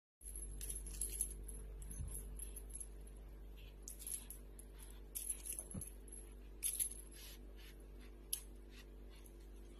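Light, high metallic clinking in short clusters, over a steady low hum.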